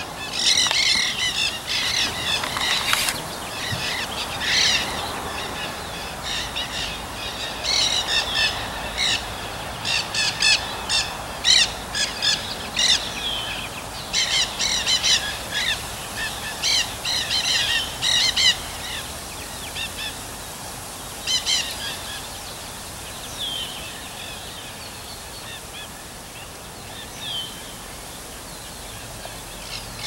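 Nanday parakeets, young birds among them, calling. Short calls come in quick clusters for most of the time, then thin out to a few single calls that slide downward.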